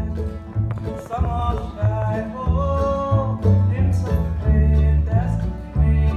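Bluegrass band playing: a lap-played resonator guitar (dobro) slides between melody notes over mandolin chords and deep bass notes.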